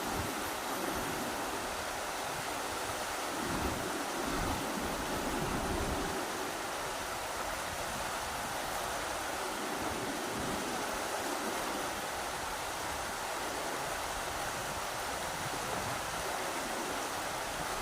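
Rushing river water, a steady dense rush with slight low surges that may be wind gusts.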